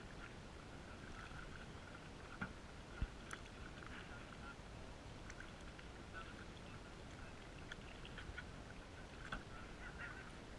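Canoe paddling muffled by a waterproof camera housing: a low rumble with a few sharp knocks of the paddle against the metal canoe, and a faint, broken high-pitched sound running through it.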